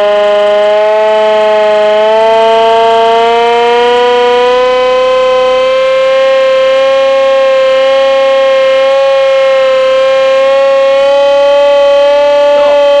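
Hand-powered air raid siren made by Carter Nelson, sounding one long continuous wail. Its pitch climbs gradually over the first several seconds, then holds nearly steady and high, with several tones sounding at once.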